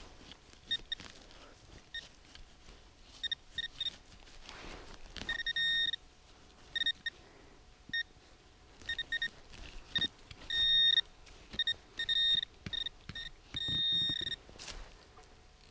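Metal detector beeping over buried metal targets as its coil is swept: a run of single-pitch high beeps, some short and some held for about half a second, coming in clusters.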